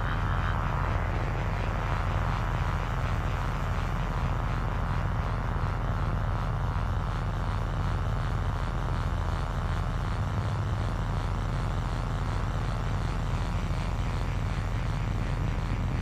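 Generator running with a low, steady moan.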